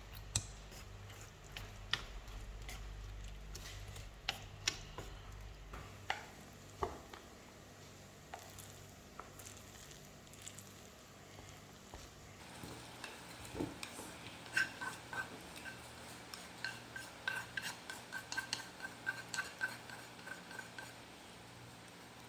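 Faint kitchen sounds: scattered light taps and clicks, then, from a little past halfway, a spoon stirring and clinking quickly and repeatedly against the side of a dish.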